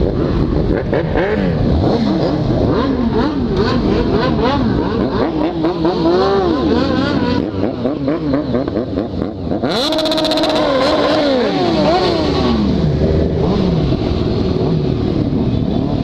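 A group of motorcycles, among them the camera rider's Yamaha XJ6 inline-four, revving and accelerating away, with many engine notes rising and falling over one another.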